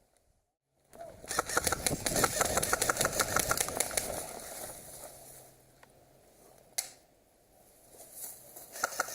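Airsoft electric gun firing on full auto: about three seconds of fast, rapid clicking, with a single sharp shot near seven seconds in.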